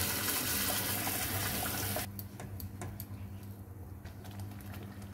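Water poured into ground masala frying in hot oil in a kadai: a steady hiss that cuts off suddenly about two seconds in, followed by a few faint clicks.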